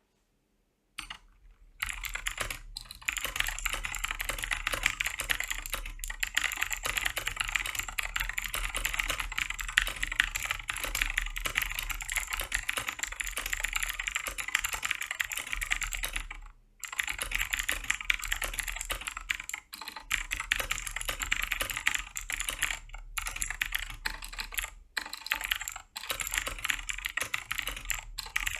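Rapid, continuous typing on a Keychron K4 mechanical keyboard, a fast stream of key clicks that starts about a second in and pauses briefly a few times, most clearly about two-thirds of the way through.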